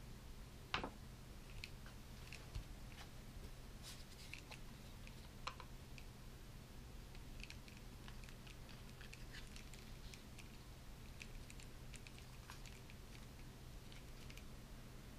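Faint plastic clicks and light taps from hands handling a plastic action figure and fitting a small plastic display stand to its foot, with a sharper knock about a second in.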